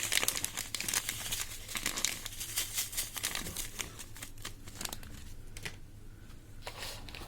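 Crinkling and crackling of jelly powder bags being handled and emptied into a bowl. The crackles are dense at first and thin out over the last few seconds.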